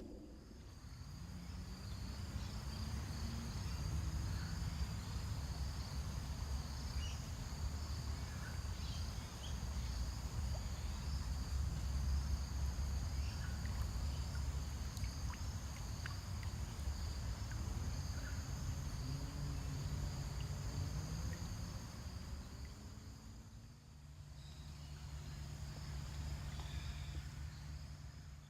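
Insects chirring steadily in the creekside bush, a high, unbroken two-band drone, over a low rumbling noise that dips briefly near the end.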